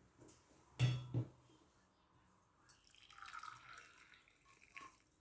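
Two sharp knocks, then liquid poured into a cup for about a second and a half, with a short knock near the end.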